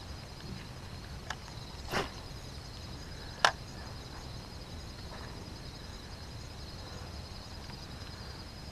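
Steady high-pitched insect chorus, a continuous trill outdoors, with a few brief sharp clicks and a swish, the loudest click about three and a half seconds in.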